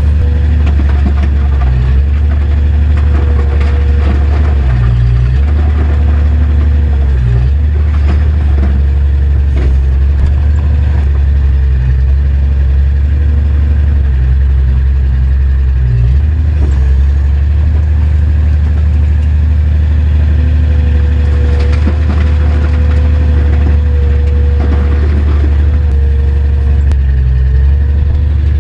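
Kubota compact excavator's diesel engine running steadily, heard from inside the cab as the machine digs and swings rubble. Its note sags briefly a few times under hydraulic load, with a few faint knocks.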